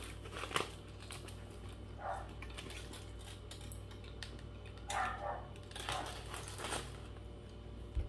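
Aluminium foil wrapper crinkling briefly in the first second, then soft chewing and breath sounds from a man eating a mouthful of burger, over a steady low hum.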